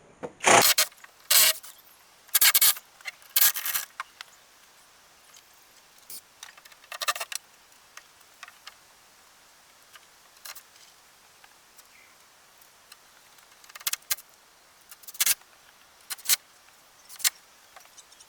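Irregular short bursts of scraping and rattling from hand work on a wooden batten and roofing felt, about a dozen in all, loudest and closest together in the first four seconds.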